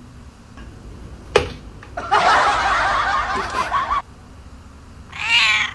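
Cats yowling at each other in a standoff. There is a sharp tap about a second and a half in, then a dense yowl lasting about two seconds, and a shorter wavering cat call near the end.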